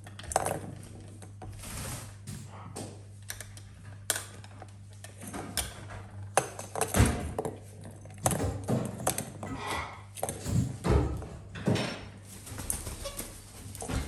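Plastic ball-track cat toy clicking and clattering irregularly as a kitten paws at the ball in its track, with a steady low hum underneath.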